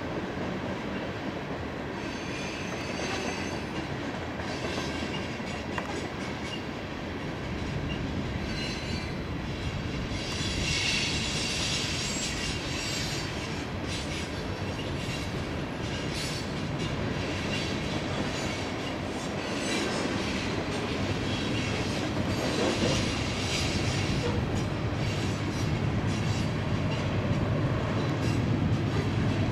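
Loaded coal hopper cars rolling past on steel wheels: a steady rumble with the clicking of wheels over rail joints and intermittent high-pitched wheel squeal, growing louder toward the end.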